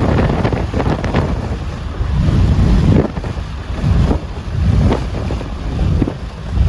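Strong gusty wind buffeting the microphone: a loud low rumble that surges and drops every second or so.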